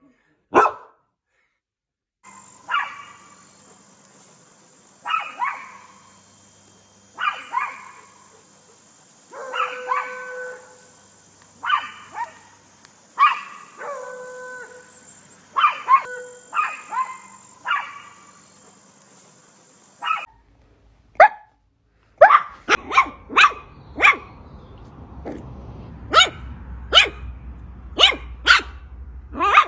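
Poodle barking, spliced from several recordings. First comes one bark, then repeated barks every second or two over a faint steady hiss, a couple of them drawn out into a short whine. About two-thirds of the way in a different recording takes over, with quicker, sharper barks, at times several a second.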